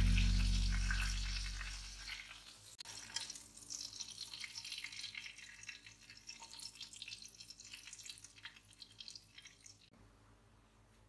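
Background music fading out over the first two seconds, then a faint crackling sizzle of hot garlic butter, which stops abruptly near the end.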